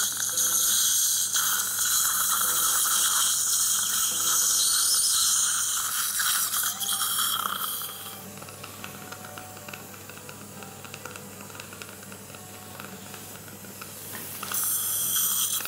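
Steady hiss of surgical suction and irrigation spray during dental implant drilling through a metal drill guide. It is loud for about the first seven seconds, drops to a softer hiss, and turns loud again near the end.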